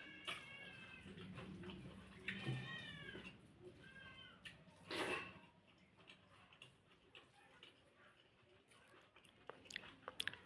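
A cat meowing three times, each meow short and arching in pitch, followed by faint clicks near the end.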